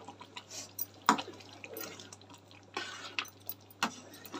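Wheat rava upma bubbling and plopping as it simmers on low flame in a pan, with a spatula stirring through it. A few sharp knocks of the spatula against the pan, the loudest about a second in.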